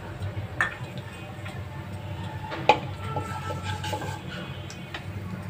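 Panch phoron (five-spice seeds) frying in hot oil in a non-stick kadai and stirred with a wooden spatula: scattered clicks and light scraping, with one sharp knock about halfway through.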